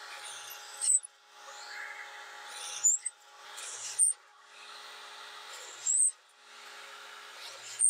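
Drill press running and boring quarter-inch holes in a wood block: a steady motor hum under the bit's cutting noise. It comes in about five short stretches that break off abruptly, each growing louder just before it stops.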